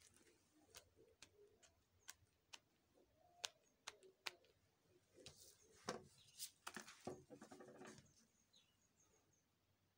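Faint handling noises: sharp clicks and taps of gloved hands on a glass tabletop, then a few seconds of rustling and scraping as a cardboard sign is picked up and moved.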